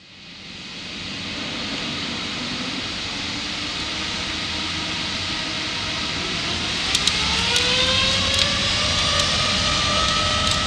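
Boeing 787-8 jet engines spooling up: a steady rushing roar swells in over the first second or so, then about six seconds in a siren-like whine rises in pitch and levels off. A few light clicks sound in the second half.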